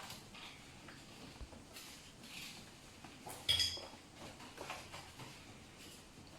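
Young raccoons scrabbling and knocking about in a washing machine, with scattered rustles and clicks and one sharp clink with a brief ring about three and a half seconds in.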